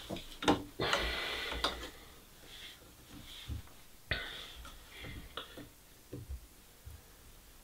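Handling noises as a T5 grow light tube is laid on a metal frame and pressed down onto double-sided gel tape: a rustle lasting about a second just after the start, then scattered light taps and clicks, the sharpest about four seconds in.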